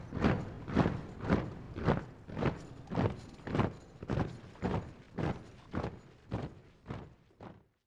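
A sound effect of heavy, evenly paced thuds, a little under two a second, growing gradually fainter and stopping just before the end.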